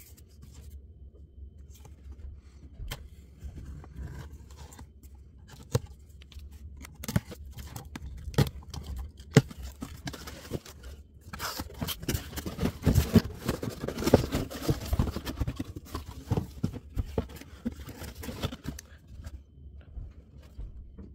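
Cardboard shipping carton being handled and torn open along its adhesive tear strip, with scattered taps and scraping. The tearing and rustling are busiest in the middle stretch.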